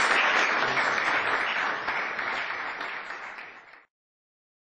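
Audience applauding, fading away over the last couple of seconds and then cut off abruptly.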